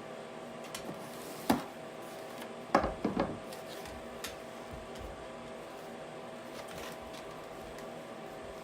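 A package being opened by hand: a sharp knock about a second and a half in, then a quick cluster of knocks and rustling about three seconds in, with a few faint ticks later. A steady faint hum runs underneath.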